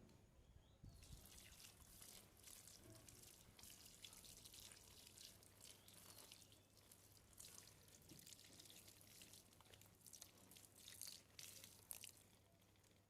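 Faint water dripping and splashing in irregular spatters, starting about a second in and stopping shortly before the end.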